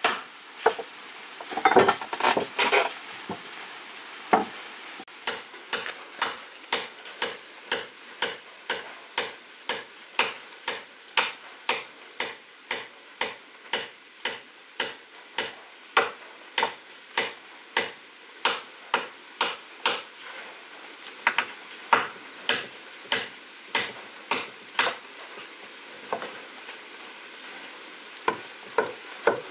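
A hand tool striking repeatedly, about two to three sharp knocks a second, some with a high metallic ring, with a rustling scrape about two seconds in.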